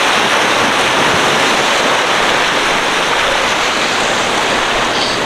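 Ocean surf breaking and washing around the rocks of a stone jetty: a loud, steady rushing of water.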